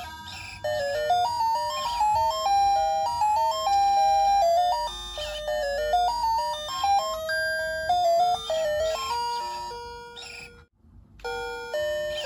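SEIKO QM741W alarm clock playing one of its electronic melody alarm tunes as a simple, chime-like single-note line. The tune breaks off briefly near the end, then the melody starts again.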